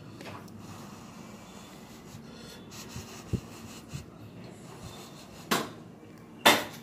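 A person eating close to the microphone: two short, sharp breaths near the end, the second louder, after a soft bump a little past three seconds in, over low room noise.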